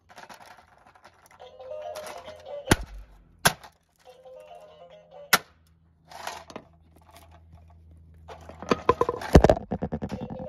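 A claw hammer strikes a plastic Hey Duggee toy telephone, landing single sharp cracks a second or two apart and then a rapid flurry of blows near the end. Between the hits the toy's electronic speaker plays short snatches of tune, which break off as the hammer lands.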